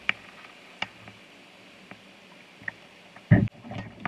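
Shallow river water running over a stony riffle around a poled canoe, with a few sharp clicks as the setting pole meets the rocky bottom, and a heavy thump a little over three seconds in.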